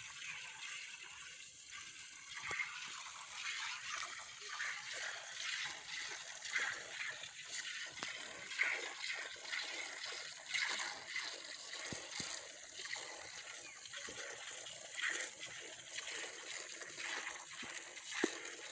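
Milk squirting in streams into a steel pail as a water buffalo is milked by hand, in a steady rhythm of short hissing squirts.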